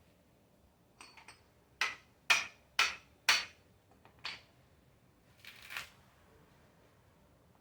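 Hammer striking a screwdriver wedged into a mature coconut's fibrous husk: four sharp blows about half a second apart, then a lighter knock, followed by a short scraping sound.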